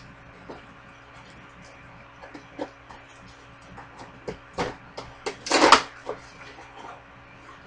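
Clicks, knocks and rustles of a toy R/C truck being worked loose from its cardboard and plastic packaging, where little plastic pins hold it down. A couple of sharper knocks come about four and a half seconds in, and a louder scraping rustle follows about a second later.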